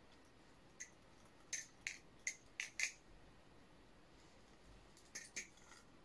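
Atropos Cassowary 2 butterfly knife (balisong) clicking as its handles and blade swing and strike each other during a flipping trick: one click about a second in, a quick run of five sharp clicks between one and a half and three seconds, and two more near the end.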